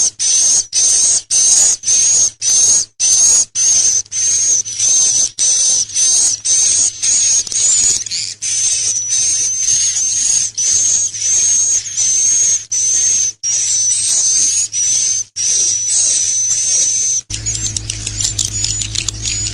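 The 'akau' calling: a long run of short, high-pitched buzzy trills, about two a second, each roughly half a second long. Near the end the calls turn into faster, broken twittering over a low steady hum.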